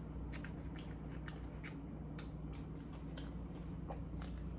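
Quiet chewing of food close to the microphone: small, irregular mouth clicks and smacks, over a steady low hum.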